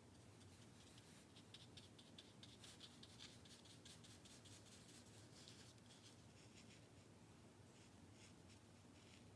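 Faint scratching of a paintbrush stroking paint onto watercolour paper, a quick run of short strokes densest between about one and a half and six seconds in, over a low room hum.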